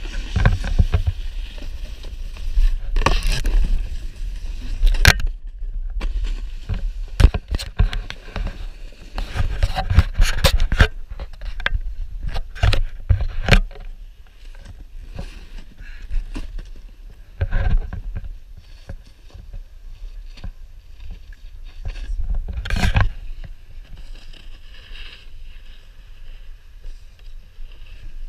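Snowboard sliding and scraping over snow, with wind rumbling on the camera microphone and many sharp knocks scattered through the run.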